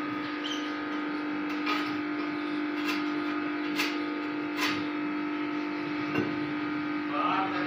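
Steady electrical hum from an idling arc-welding machine, with about five sharp taps as the steel frame tubes are handled and set in place.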